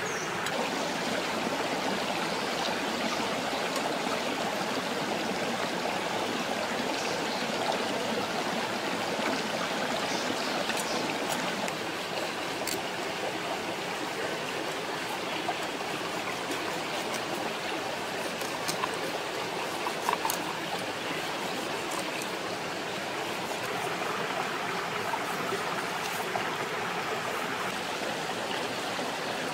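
Shallow stream running over stones, a steady rush of water, with a few small clicks and a short knock about twenty seconds in.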